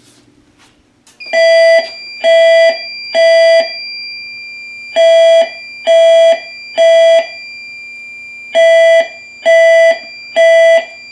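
Fire alarm evacuation tone sounding in the temporal-three pattern, set off by pulling the fire alarm pull station: three equal beeps, a pause, repeated three times. A steady high-pitched whine runs underneath from about a second in.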